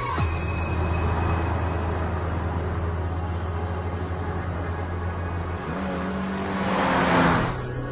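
Car engine running with a steady low drone. About six seconds in it shifts to a higher engine note as a car sweeps past with a rushing whoosh that swells and fades near the end.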